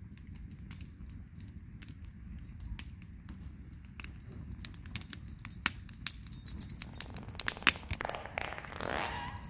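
Wood campfire crackling and popping in a steel fire ring, with irregular sharp snaps over a low steady rumble. Near the end there is a brief metallic jingling.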